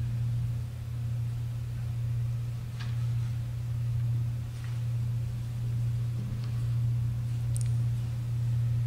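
A steady low hum, with a few faint taps and clicks scattered through it.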